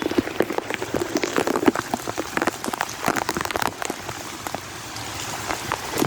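Heavy rain, with drops striking a surface in dense, irregular sharp taps over a steady hiss.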